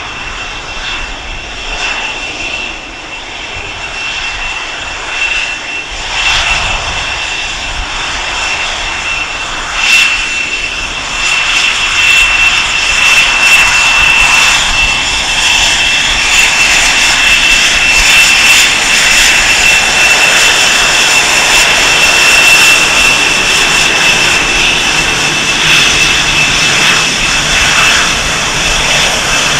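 CF-18 Hornet fighters taxiing, their twin jet engines running at low power: a steady jet rush with a high, unchanging turbine whistle. It grows much louder about ten seconds in as a jet comes close past and stays loud.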